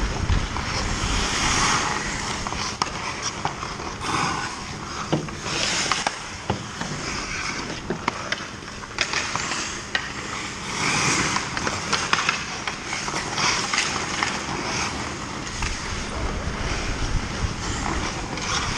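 Ice hockey skate blades carving and scraping the ice in repeated swooshes that swell and fade every few seconds, with scattered sharp clacks of sticks and puck.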